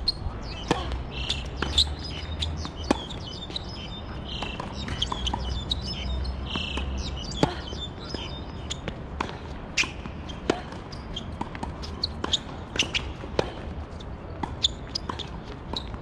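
Tennis balls struck by rackets and bouncing on an outdoor hard court: sharp pops at irregular intervals, some loud and some fainter. Birds chirp briefly in the first half.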